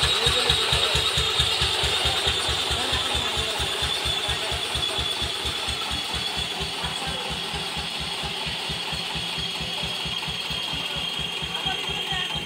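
Engine of a small loaded truck running with a slow, even low thudding, about five beats a second.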